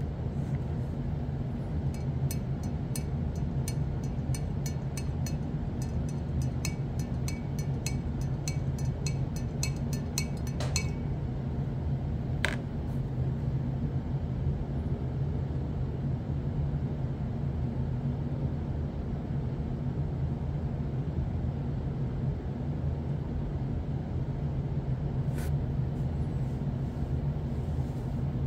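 A steady low hum, with a run of quick, regular ticks, about three a second, for several seconds near the start, and two single clicks later.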